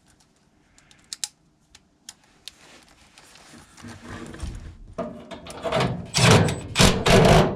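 A few light metal clicks, then a screw being driven into the blower motor mount, a rough grinding noise that builds and is loudest near the end.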